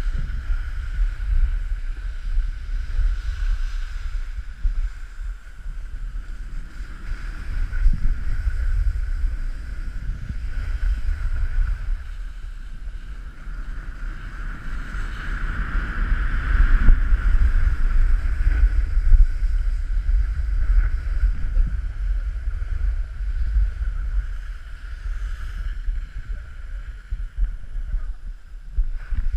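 Wind rumbling on a helmet- or body-worn action camera's microphone while snowboarding downhill, over the steady scraping hiss of the snowboard sliding on packed snow. The rushing grows louder for a few seconds around the middle.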